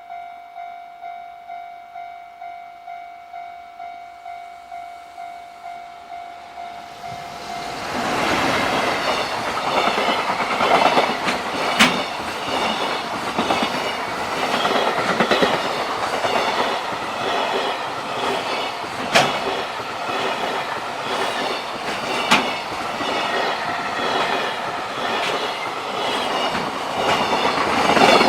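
Level-crossing warning bell ringing in a steady pulse about twice a second. From about seven seconds in, a JR Freight freight train passes close by with a loud continuous rumble, its wheels clicking sharply over the rail joints.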